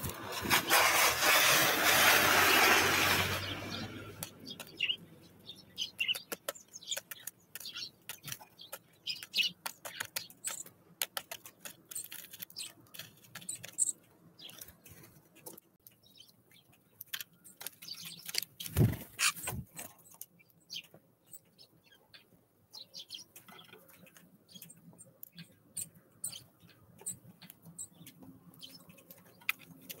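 Birds at a wooden feeder tray: scattered light ticks and taps of feet and beaks on the wood and seed, with one heavier knock about 19 seconds in. A loud rushing noise, like wind on the microphone, fills the first three seconds or so.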